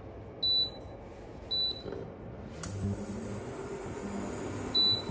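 Philips induction cooktop beeping as its touch controls are pressed: three short high beeps, the last near the end. Midway there is a click, and the hob starts heating with a faint steady high whine and a low hum.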